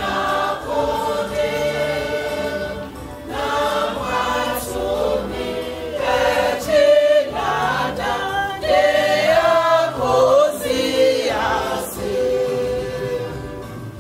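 Church choir singing together, growing softer near the end.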